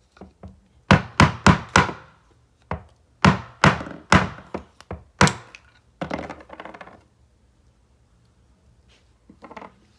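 The old rubber bushing being knocked out of a car's rear lower control arm: about ten sharp knocks in quick runs, then a rougher rattle for about a second.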